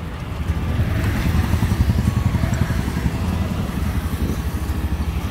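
Honda Activa 125 scooter's single-cylinder engine running, with a fast, even pulse that gets louder about half a second in.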